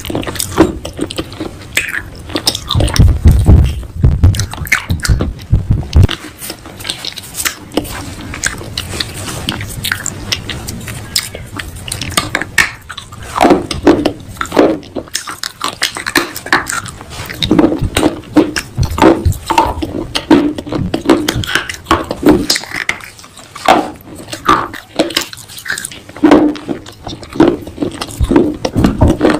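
Pieces of baked clay pot being bitten and chewed close to the microphone: a dense run of sharp, brittle crunches, with a low rumble during the first few seconds.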